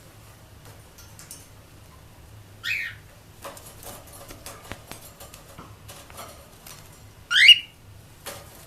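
Two short, high-pitched squeaky sneezes, about five seconds apart, the second louder, with faint small clicks and rustles between them.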